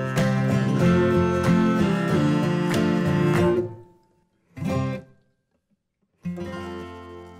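Background music of strummed acoustic guitar that fades out about four seconds in. A short snatch follows, then a final chord rings and dies away near the end.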